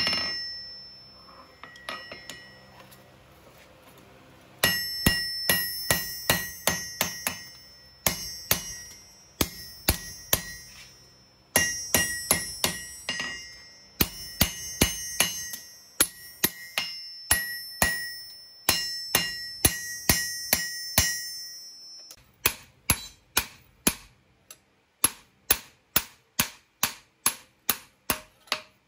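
Blacksmith's hammer striking steel on an anvil while hand-forging a knife blade, in runs of about two blows a second with a clear ringing anvil tone, broken by short pauses. The first run starts after a lull of about four seconds. From about two-thirds of the way through, the blows carry on steadily without the ring.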